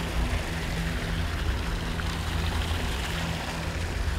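A ship's engine humming steadily under the rush of water along the hull.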